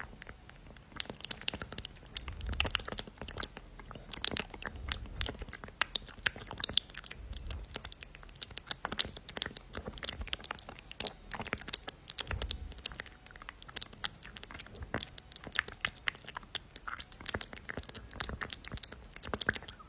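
Irregular crunching clicks and crackles, with occasional soft low thumps. There is no steady buzzing.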